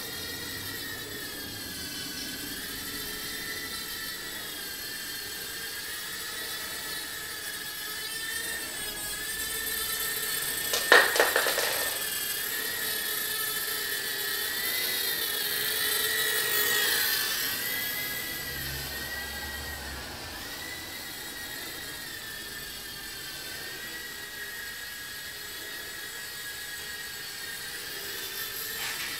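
TBS Tiny Whoop Nano micro quadcopter in flight: its tiny motors and propellers make a high whine that wavers in pitch as the throttle changes. About eleven seconds in there is a brief clatter of sharp knocks.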